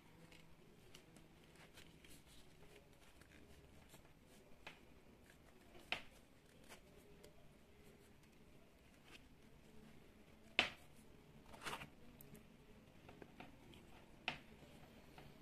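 Faint handling noises of a condenser microphone and its foam windscreen: soft rubbing with a handful of light clicks and taps, the sharpest about ten and a half seconds in.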